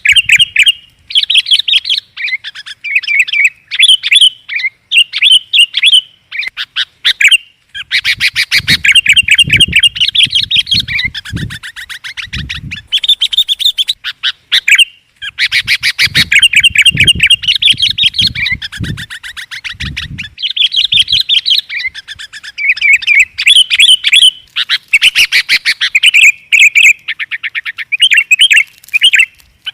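Sooty-headed bulbuls calling: short, bubbly phrases repeated over and over, broken twice by long runs of fast chattering.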